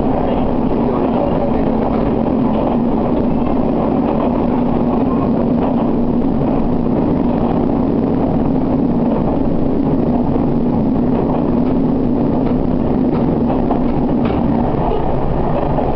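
Diesel railcar running along a single track: a steady engine drone over the rumble of wheels on rail, heard from inside the cab. The drone fades out near the end.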